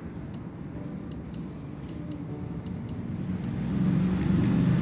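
Chopped onions frying in oil in a kadhai, with irregular small crackles and pops. Under them runs a low rumble that grows louder near the end.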